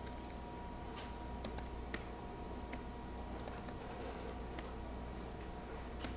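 A handful of separate key taps on a computer keyboard, spaced irregularly, over a steady low hum.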